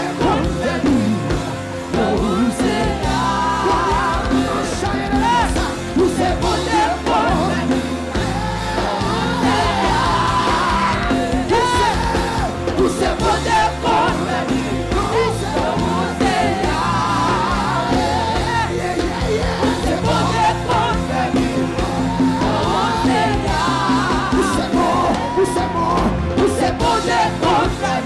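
Live church worship music: singers with a lead voice and backing choir, over a band with keyboard and electric guitar, playing without a break.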